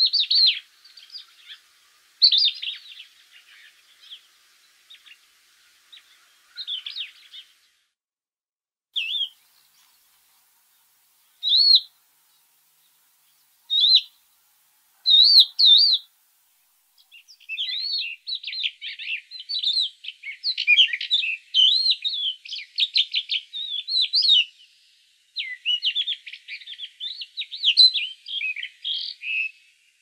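Small songbirds chirping: short, separate chirps through the first half, then long runs of rapid, twittering song from about halfway through to near the end.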